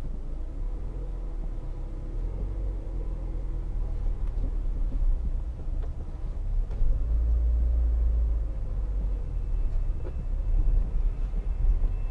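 Car engine idling, heard from inside the cabin: a steady low rumble that grows louder about seven seconds in as the car begins to creep forward.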